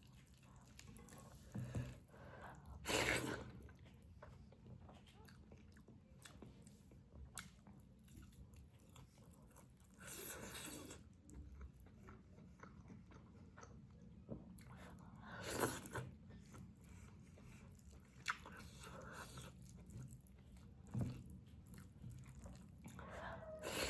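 Close-miked eating of spicy chicken and gravy rice: chewing and mouth sounds, with a few louder bites or slurps every several seconds and small clicks between them.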